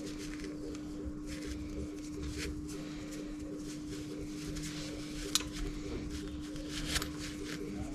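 Light clicks and taps of hands and tools working on a motorcycle's front brake caliper, pushing its pistons back in, over a steady hum; the sharpest clicks come about five and seven seconds in.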